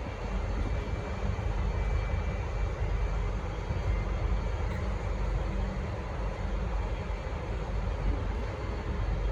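V/Line N-class diesel-electric locomotive running steadily at the platform, a low, even engine sound with no horn sounding, muffled by a dust-clogged phone microphone.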